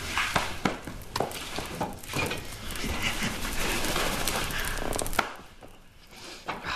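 Split kindling sticks knocking and clattering against one another in a series of sharp wooden knocks. A denser stretch of rattling runs from about two and a half seconds in and stops abruptly a little after five seconds, followed by a few scattered knocks.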